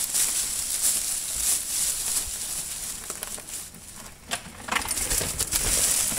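Dry fallen leaves crunching and rustling, with scattered clicks. Near the end a mountain bike rolls through the leaves close by, and the rustle grows louder.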